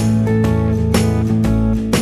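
Background music: strummed acoustic guitar over a steady bass, with a chord struck about once a second.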